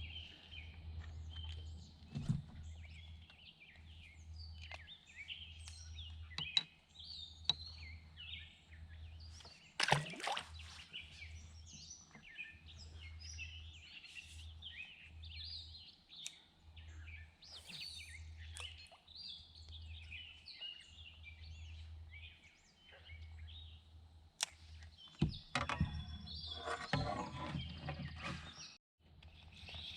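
Birds chirping and singing around a lake, many short calls overlapping throughout, over a low rumble. A single sharp knock about ten seconds in.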